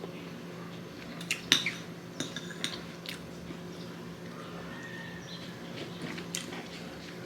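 Cutlery clinking against a plate while eating. There are a few scattered light taps, the sharpest about one and a half seconds in.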